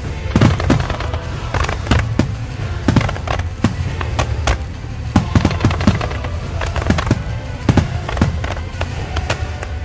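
Fireworks exploding in a quick, irregular run of sharp bangs, two or three a second, over a continuous low rumble.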